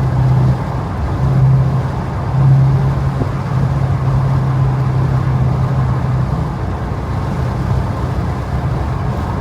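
Dodge Challenger Scat Pack's 392 HEMI V8 exhaust running while driving, heard through open windows with wind noise. The deep engine note swells a few times in the first six seconds, then eases off.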